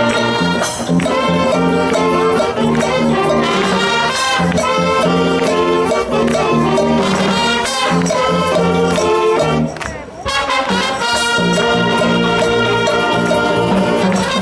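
Upbeat music with brass instruments over a steady beat, with a brief break about ten seconds in.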